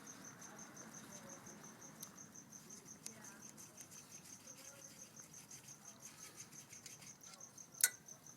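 A cricket chirping steadily at a fixed high pitch, about four chirps a second, faint under low room noise. One sharp click stands out near the end.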